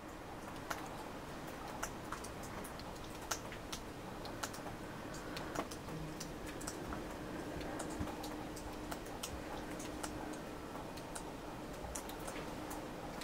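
Rain mixed with wet snow falling, heard as irregular sharp drips and ticks over a steady hiss, with a faint steady hum underneath from about five seconds in.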